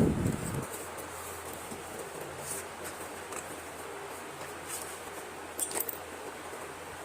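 Handling of slate pencils and their packaging: a dull thump at the start, then a few faint light clicks and rustles over a steady hiss.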